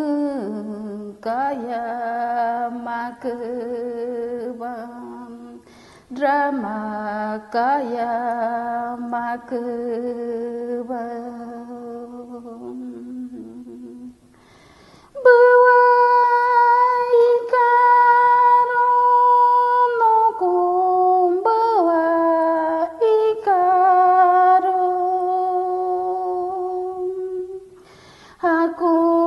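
A woman singing an icaro, an Amazonian ayahuasca ceremony chant, solo with no accompaniment, in long held, wavering phrases with brief pauses between them. About halfway through, her pitch jumps to a higher held note, then steps back down.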